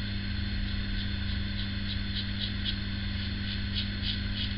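Short scraping strokes of a PAL Injectomatic single-edge injector razor with a Personna blade cutting stubble through shaving lather, about three or four strokes a second. A steady low hum runs under them.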